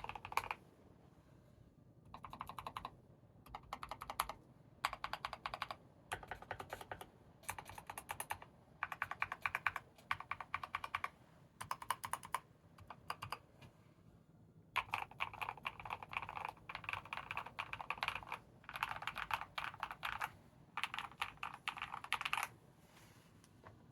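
Akko 3098B mechanical keyboard with hand-lubed Akko CS Silver linear switches and a foam-, polyfill- and silicone-dampened case, typed on in short quick bursts with pauses between them. Near the end comes a longer, steady run of typing.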